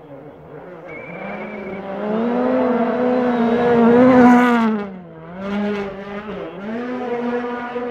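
Hyundai i20 Coupe WRC rally car, with a turbocharged 1.6-litre four-cylinder engine, coming up the stage at full throttle. Its engine note climbs to a loud peak as it passes about four seconds in. The note dips sharply twice as the car moves away, then runs on steadily.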